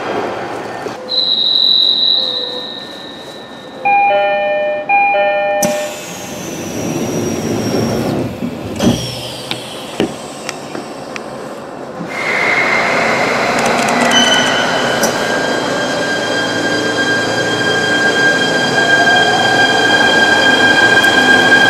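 Electric train departing: a door chime of a few steady notes about four seconds in, then a few knocks as the doors shut. About twelve seconds in, the traction motors start with a rising whine that settles into steady high tones over the running rumble as the train pulls away.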